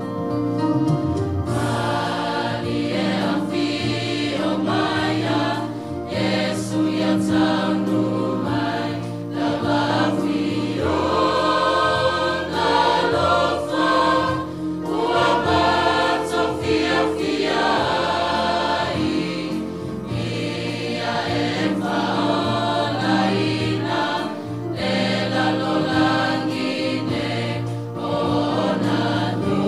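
A large mixed church choir singing a hymn in parts, over a sustained organ-like keyboard accompaniment. The keyboard plays alone briefly before the voices come in about a second and a half in.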